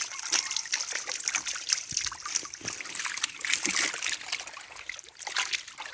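Pond water splashing and sloshing in quick, irregular splashes.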